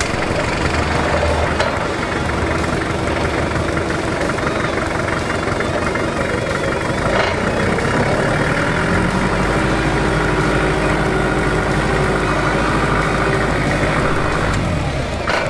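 Forklift engine running steadily. About nine seconds in its note settles into a lower, even hum, and it holds until shortly before the end.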